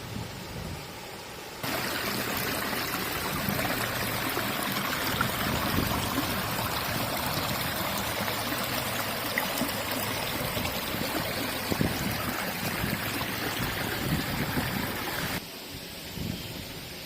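Water rushing steadily over a waterfall on the River Swale, with the river running low. It sets in sharply about a second and a half in and cuts off suddenly near the end, leaving a fainter outdoor background.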